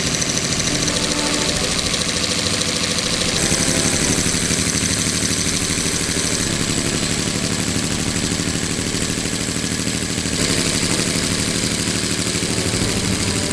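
Miniature homebuilt V12 model engine running on compressed air, its valvetrain giving a fast, even clatter. The tone shifts abruptly twice, about three and ten seconds in.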